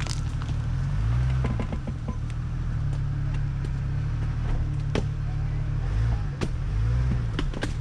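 Jeep engine running low and steady while the vehicle crawls over rough trail, its revs swelling briefly now and then. Sharp knocks and clunks from the vehicle over rocks and ruts come through it, the loudest about five, six and seven and a half seconds in.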